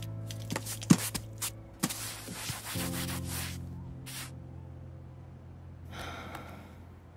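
Soft sustained music notes, which fade in the second half, under rubbing and scrubbing strokes of a rag or brush on the paint-splashed wooden cradle. A few light taps come in the first couple of seconds.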